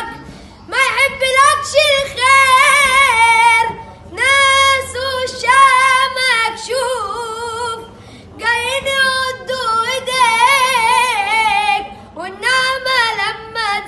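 A solo voice singing long, ornamented Arabic phrases with a wavering vibrato, in four or five phrases split by short breaths.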